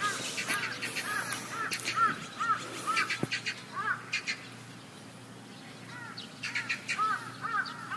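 Birds calling in a rapid series of short rising-and-falling chirps, several a second. The chirps fade out about halfway through and start again near the end.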